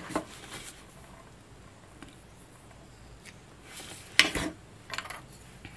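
Small Christmas ball ornaments being handled, clicking and tapping against each other a few times, with the sharpest clink about four seconds in.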